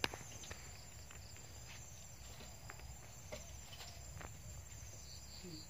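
Faint background of insects chirring steadily at a high pitch, with a few soft, scattered clicks.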